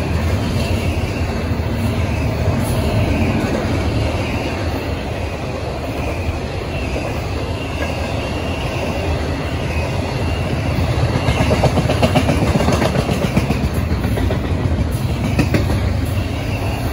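Double-stack intermodal freight train's well cars rolling past: a steady rumble of steel wheels on rail with rapid clickety-clack as the trucks cross rail joints, swelling a little in the middle.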